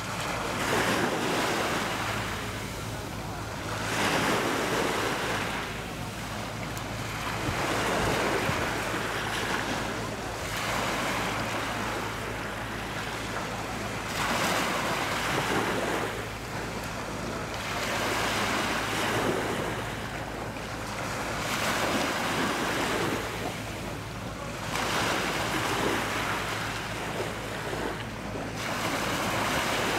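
Sea waves washing onto the shore, swelling and falling about every three to four seconds, with wind.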